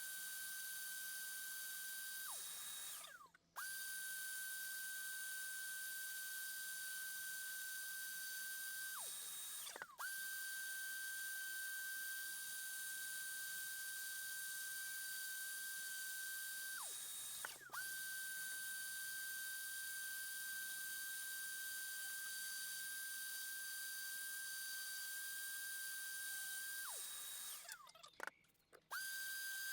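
Spindle sander motor running with a steady high whine while rounding over a small wooden box's corners. Four times the motor spins down with falling pitch and stops, then is abruptly back at full speed.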